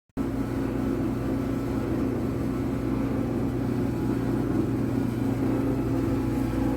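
A machine running steadily, with a constant motor hum and rumble that starts abruptly just after the start.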